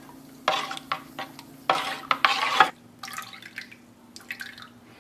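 Metal spoon stirring homemade oat milk in a bowl, the milk sloshing and splashing in a few bursts, loudest in the first three seconds. Fainter dripping and splashing follow as milk runs back into the bowl.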